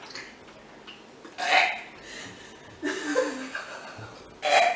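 A man gagging and heaving after tasting baby food, with three short, harsh throat heaves: about a second and a half in, around three seconds in with a brief groan, and the loudest near the end.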